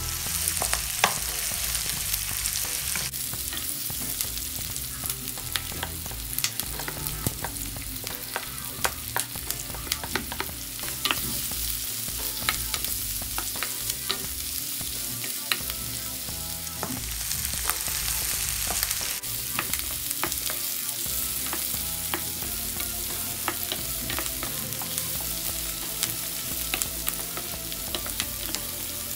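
Food sizzling as it is stir-fried in a hot pan, with frequent irregular clicks and scrapes of a spatula against the pan.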